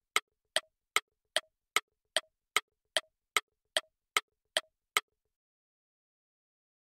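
Clock-ticking sound effect, used as a quiz timer while a question is shown: even, sharp ticks at about two and a half a second. They stop about five seconds in.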